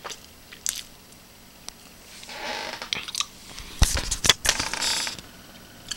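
Handling noise from a handheld camera being carried about: rustling, a few faint clicks, and a cluster of sharp knocks and thumps about four seconds in.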